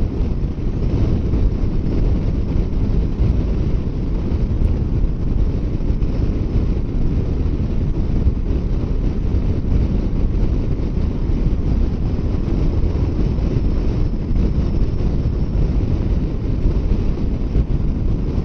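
Steady wind rush buffeting the microphone on a Kawasaki Versys 650 motorcycle riding at highway speed, a low, even roar that covers the engine and road noise.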